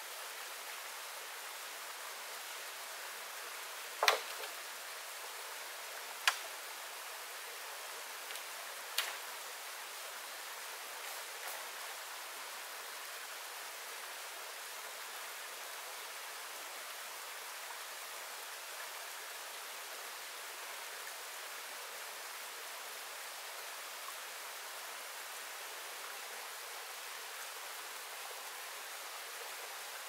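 A stream running with a steady rush of water, broken by three sharp knocks about four, six and nine seconds in, the first the loudest.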